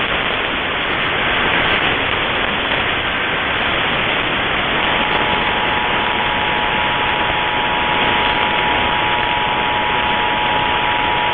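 AM radio static and hiss. About halfway through, the Emergency Alert System two-tone attention signal (853 and 960 Hz together) starts and holds steady over the static, announcing the test message.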